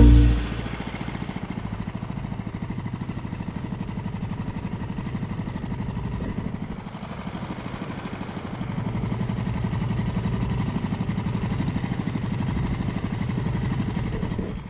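Small engine running steadily, with a fast, even pulse; it drops briefly about halfway through, then runs a little louder.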